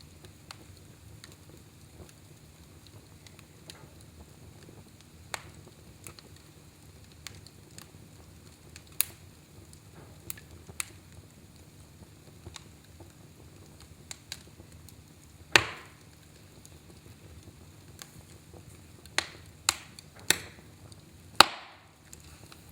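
Wood fire in a fireplace crackling: sharp pops at irregular intervals over a low steady background, with a cluster of louder pops near the end.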